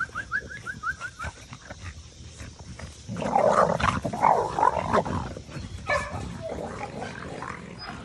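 American Bully puppies growling as they play-fight, loudest from about three to five seconds in. Near the start there is a quick run of short, high, rising chirps.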